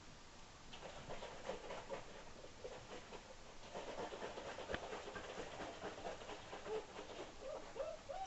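Five-week-old German Shepherd puppies at rough play: small growls and, near the end, a few short whining calls that bend in pitch, over many light clicks of claws and rope toys on the floor.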